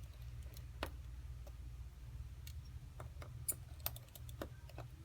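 Scattered light clicks and ticks at irregular intervals from a small screwdriver and tiny screws and parts being handled while an iPhone 4S is taken apart, over a low steady hum.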